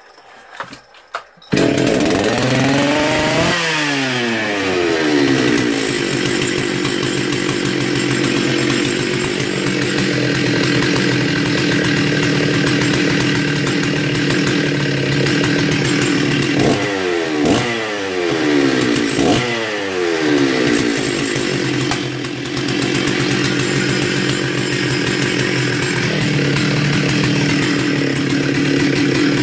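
Stihl 034 AV chainsaw's two-stroke engine catching about a second and a half in, revving up and back down, then running steadily, with two short throttle blips past the middle. It starts and runs fine.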